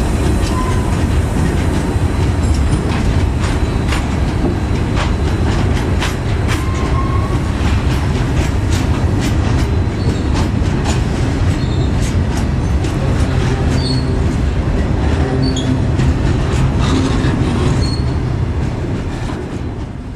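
BOXN freight train rolling past: a steady low rumble with many sharp clicks of wheels over rail joints and a few brief high wheel squeals. It fades out near the end.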